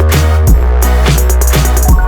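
Electronic music with a heavy bass line and a steady drum beat.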